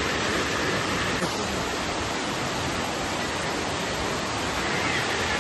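Floodwater rushing in a steady, even roar.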